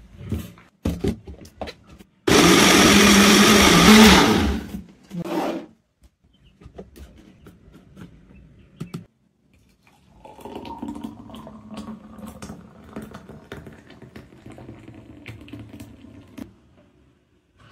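Personal bullet-style blender chopping milk, apple pieces and almonds: a few clicks as the blade lid is screwed on, then the motor runs loud for about two seconds and winds down. Later a thick milkshake pours steadily into a glass for several seconds.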